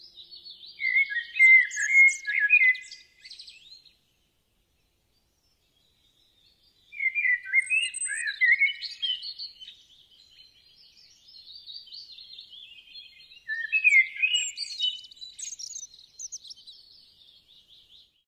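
Small songbirds twittering in three quick, high-pitched bouts of song, with pauses between them.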